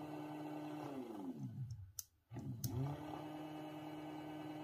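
DC electric motor running at a steady hum, then winding down with falling pitch as its power is cut about a second in. After a couple of switch clicks it spins up again and runs steadily.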